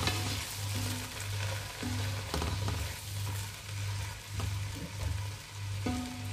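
Chopped tomatoes sizzling as they fry in hot oil, stirred with a plastic slotted spoon that scrapes the pot now and then. Background music with a steady low beat runs underneath.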